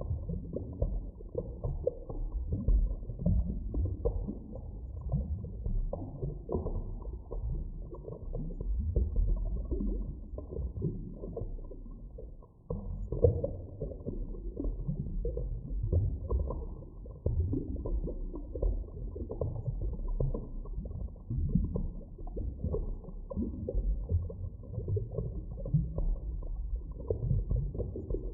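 Muffled underwater ambience: a low, deep rumble with irregular swells and surges, with nothing in the higher pitches. It dips briefly about twelve seconds in, then comes back with a sudden surge.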